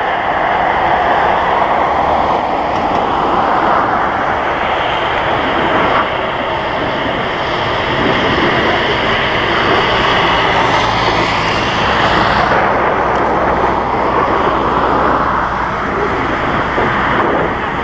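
Jet engines of a Boeing 747-8F freighter, four GEnx turbofans, running at taxi power: a steady whine and rush. The higher part of the whine drops away about two-thirds of the way through.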